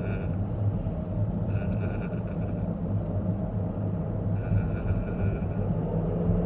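Steady low rumble of a car's road and engine noise heard from inside the moving car. A short electronic tone sounds three times, about three seconds apart.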